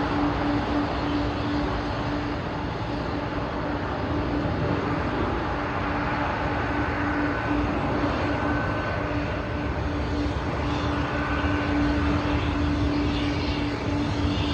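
Boeing 747's four jet engines running in a steady roar with a constant low hum underneath. A fainter high tone comes and goes in the second half.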